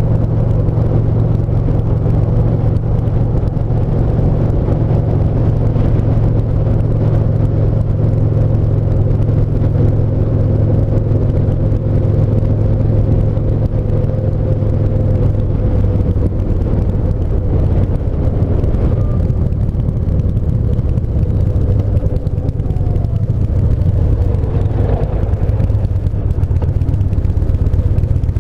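Yamaha SCR950's air-cooled V-twin running at a steady cruise, heard from the bike with road noise underneath; the engine note shifts slightly lower about halfway through.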